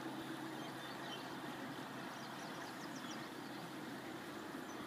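Steady rushing of river current, with a few faint high chirps about halfway through.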